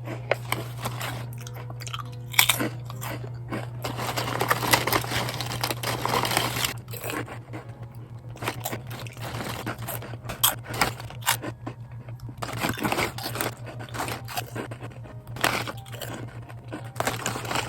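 Crunching and chewing of Kkokkalcorn, cone-shaped corn snacks, in irregular crisp crackles, over a steady low hum.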